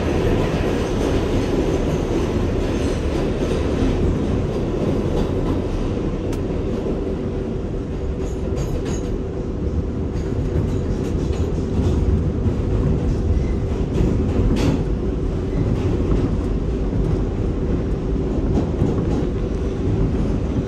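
New York City subway train running between stations: a steady loud rumble of wheels on rails under a steady motor hum, with a couple of sharp clicks from the track.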